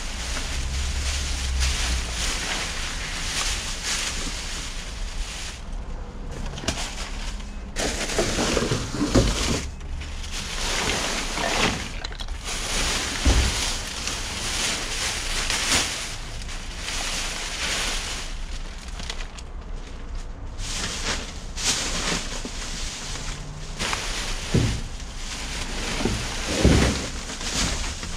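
Plastic trash bags rustling and crinkling as they are grabbed and shifted around inside a dumpster, with a few dull thumps.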